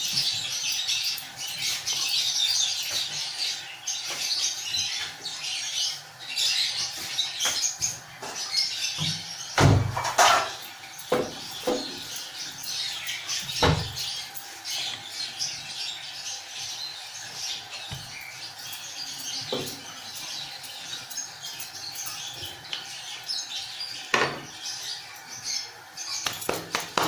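Wooden rolling pin rolling paratha dough on a wooden board, with a few sharp knocks of the pin and board, the loudest about ten and fourteen seconds in. Birds chirp steadily in the background.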